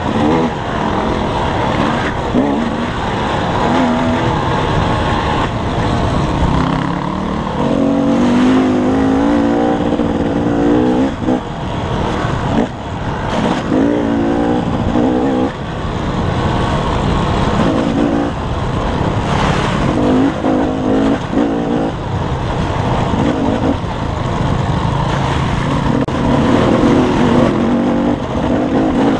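Dirt bike engine running under constant throttle changes, revving up and dropping back again and again, with a few sharp thumps along the way.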